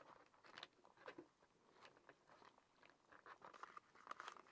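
Faint crinkling and small clicks of a foil-lined Back Country Cuisine freeze-dried meal pouch as the just-added boiling water is stirred in with a plastic spoon. The crinkling grows busier about three seconds in, as the pouch's zip seal is pressed shut.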